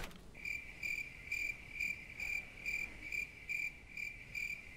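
A single cricket chirping at a steady pace, about two chirps a second. It is the stock 'crickets' sound of a dead silence, standing for time frozen.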